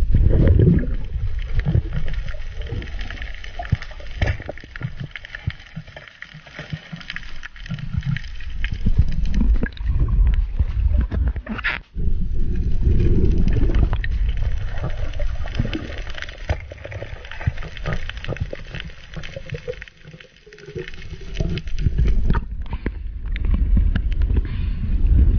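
Muffled rushing and gurgling of water around a camera carried underwater by a swimming diver, swelling and fading unevenly, with one sharp knock about halfway through.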